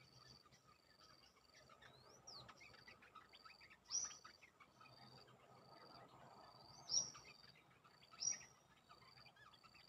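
Olive-winged bulbuls calling: a short high note repeats steadily, and three louder, sharp rising calls come about four, seven and eight seconds in.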